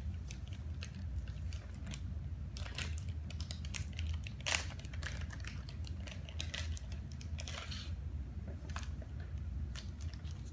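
Small plastic toy doll and accessories being handled on a table: scattered light clicks and rustles, with one sharper click about four and a half seconds in, over a steady low hum.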